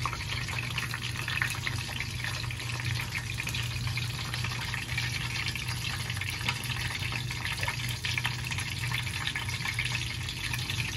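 Breaded fish frying in hot oil in a small saucepan: a steady sizzle full of fine crackles, over a steady low hum.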